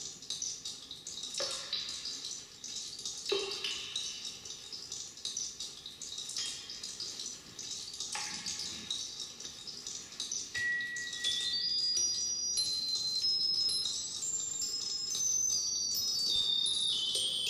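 Electroacoustic piece played over loudspeakers: a fizzing, crackling texture with a few sharp strikes whose ringing falls in pitch, then, about eleven seconds in, clear high chime-like tones entering one after another and stepping downward in pitch as it grows louder.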